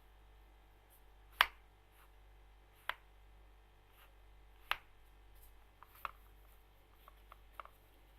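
Scattered sharp plastic clicks and knocks from handling a pair of Jabra Revo headphones, four distinct ones a second or so apart and a few lighter ticks near the end.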